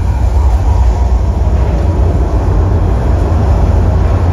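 Theme-park simulated earthquake effects: a loud, continuous deep rumble.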